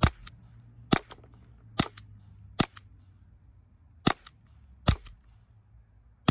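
Sig Sauer P365 CO2 BB pistol firing, a sharp crack with each blowback shot, about one shot a second, with a longer gap after the fourth shot. A fainter click follows just after several of the shots.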